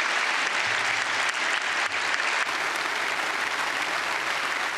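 A large assembly of parliamentarians giving a standing ovation: dense, steady applause from many hands.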